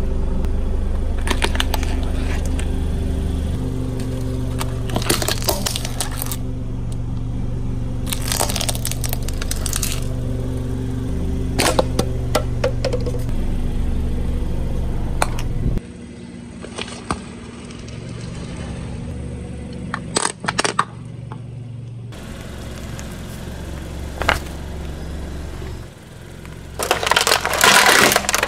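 Car tyre crushing plastic and tin toys: a series of sharp cracks and crunches of breaking plastic at several points, the loudest cluster near the end, over a steady low hum.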